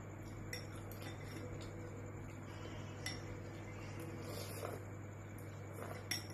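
Eating utensils clinking against a bowl of noodle soup, a handful of light, scattered clinks over a steady low hum.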